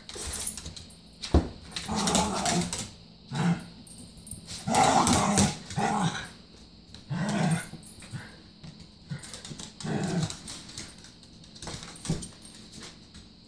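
Dogs play-growling as they wrestle, in short growls every second or so, with a sharp knock about a second and a half in.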